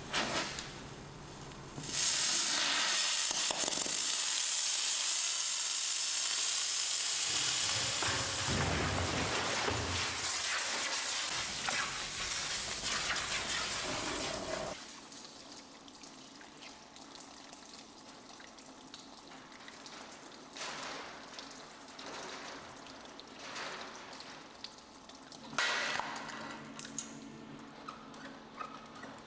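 A chain-reaction contraption running. A loud, even hiss starts about two seconds in and stops suddenly about halfway through. After that there is a low steady hum with scattered light clicks and knocks, and one sharper knock near the end.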